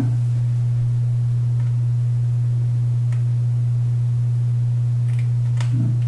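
A loud, steady low electrical hum, with a few faint clicks from a small screwdriver turning a screw in a MacBook Air's aluminium bottom case.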